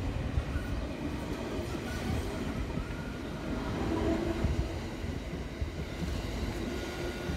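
E217-series electric multiple unit cars rolling past under tow behind a locomotive, with a steady rumble of steel wheels on the rails.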